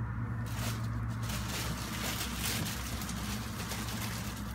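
Plastic packaging rustling and crinkling as packaged shirts are handled and packed into a cardboard box, over a steady low electrical hum.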